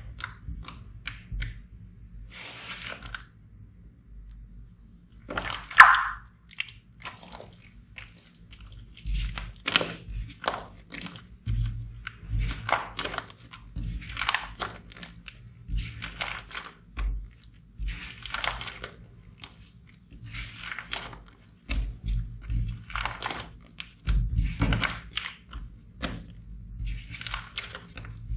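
Slime being squeezed and pressed by hand, giving irregular crackling, squishing noises every second or two, several with a low thud.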